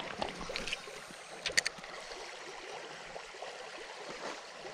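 A shallow stony river flowing, a steady rush of running water, with a couple of sharp clicks about a second and a half in.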